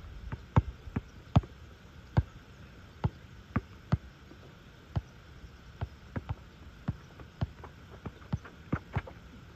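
Basketball bouncing on an asphalt outdoor court as it is dribbled: sharp single bounces at an uneven pace of about two a second, some coming in quick pairs.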